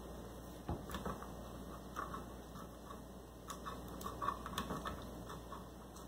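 P-38 military can opener levering and cutting its way around a tin can's lid, stroke by stroke: a run of small, irregular metal clicks and crunches, roughly one every half second.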